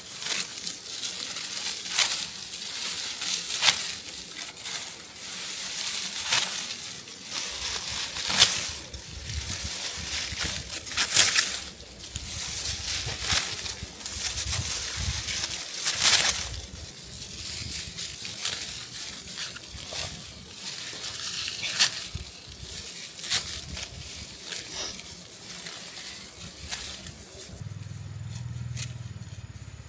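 Dry rice stalks rustling and crunching as they are cut and handled, with many sharp snaps, dying down near the end.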